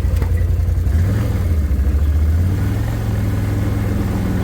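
A vehicle engine running under way; its pitch rises about a second in and then holds steady.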